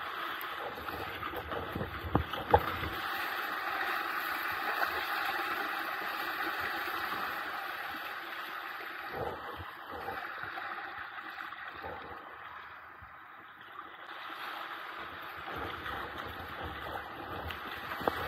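Water rushing and splashing along a sea kayak's hull as it surfs through waves, with sharper splashes from paddle strokes now and then. The rush eases briefly about three-quarters of the way through.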